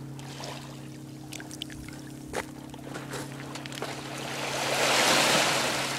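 Small waves washing in over a sand and rock shoreline, the surge swelling to its loudest about two-thirds of the way through, with scattered small clicks. A steady low hum runs underneath.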